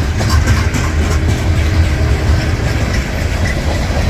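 Norfolk Southern freight train rolling past: a steady heavy low rumble with scattered sharp clicks from the wheels and cars.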